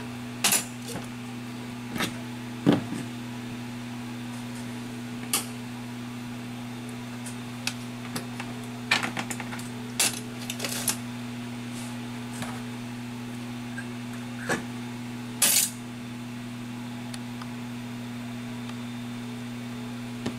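Steady low electrical hum from a repair bench, with a dozen or so scattered sharp metallic clicks and taps.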